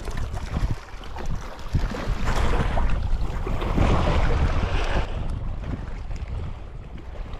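Wind buffeting the microphone, a heavy rumbling noise that swells louder for about three seconds in the middle.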